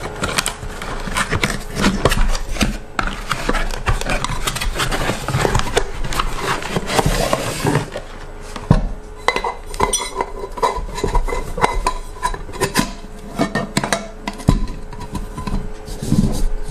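Cardboard box being opened and handled, a dense rustling and scraping, for about the first half. Then a nested metal camping pot set in a mesh bag is pulled out and handled, its pots clinking and knocking with brief metallic ringing.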